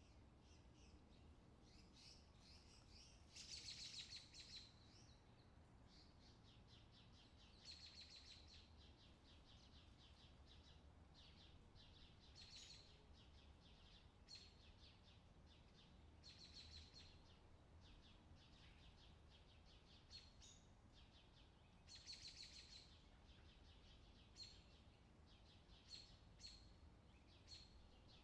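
Faint songbirds chirping and trilling in short phrases every couple of seconds, closer together near the end, over a low steady hum. This is a recorded summer birdsong background track.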